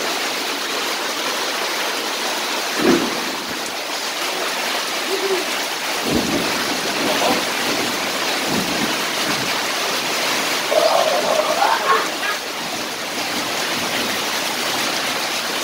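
Heavy rain falling steadily, with a stream of water pouring off the roof and splashing onto the wet concrete yard. A few short splashes stand out, and a child's voice is heard briefly about eleven seconds in.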